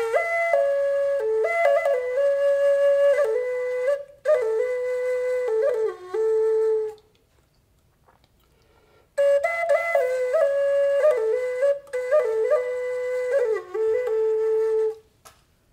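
Wooden end-blown flute playing a slow, soothing melody in two phrases with a pause of about two seconds between them. Each phrase steps through a few notes and ends on a held lower note.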